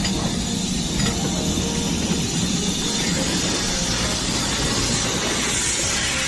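LMS Stainer Class 5 steam locomotive and train, a steady rumble with escaping steam hissing, the hiss growing louder in the second half.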